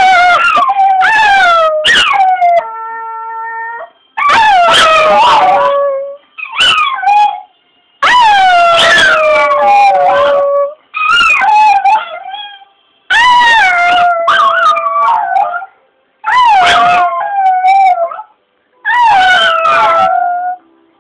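Small dog howling over and over, about nine long drawn-out howls, each sliding down in pitch and separated by short breaths.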